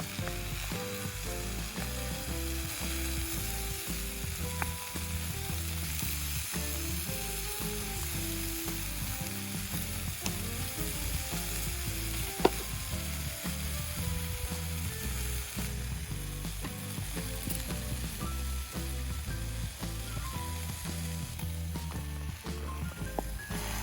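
Background music, a soft melody over a bass line, laid over a steady sizzling hiss, with one sharp click about halfway through.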